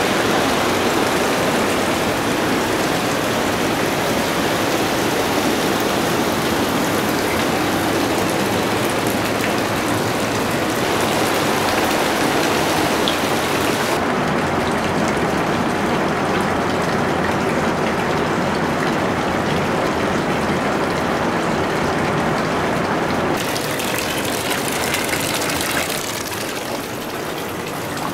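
Water rushing steadily in a continuous loud wash. The sound thins out about halfway through, fills out again, and falls slightly near the end.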